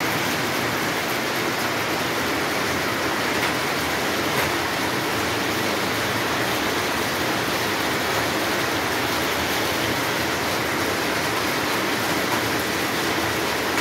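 Hail and rain falling hard on roofs and paving: a dense, steady hiss made of countless small hits.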